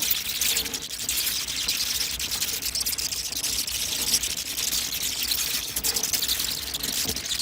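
A colony of bats chittering: a dense, steady mass of high squeaks and clicks over a low rumble.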